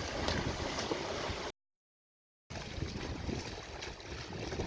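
Wind buffeting the microphone over splashing in shallow surf as someone runs through the water. About a second and a half in, the sound cuts out completely for about a second, then wind noise returns.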